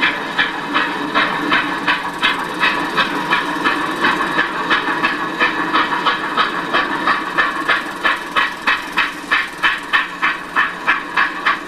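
Texas & Pacific No. 610, a 2-10-4 steam locomotive, working hard under load, its exhaust chuffing in an even rhythm of about three beats a second over a steady hiss. The beats grow sharper and more distinct near the end.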